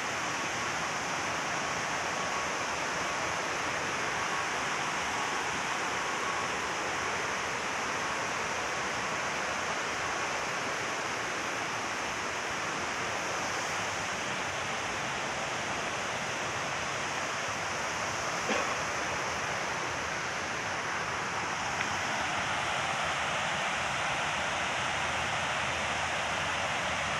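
Steady rush of a river pouring over a dam and rapids, with a single sharp click about two-thirds of the way through.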